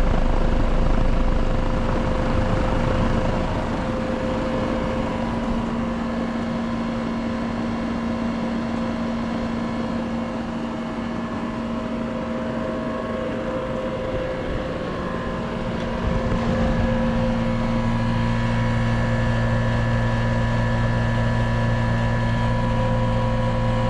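A 2006 3-ton WeatherKing central air conditioner's outdoor unit running steadily: its Bristol reciprocating compressor hums under the whoosh of the condenser fan, and the unit sounds healthy. About sixteen seconds in, the sound gets louder and a deeper hum comes up.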